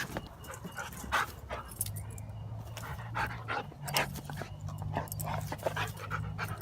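A dog whining and whimpering in short, irregular yelps. A steady low hum comes in about two seconds in.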